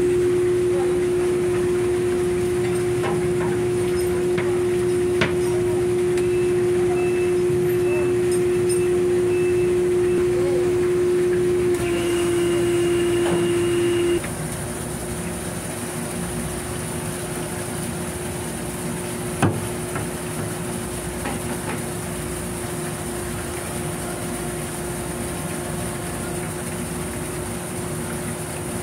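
Steady drone of machinery with one strong constant hum, dropping in level about halfway through. A faint beeping pulses for a few seconds in the first half, and there are a couple of sharp knocks.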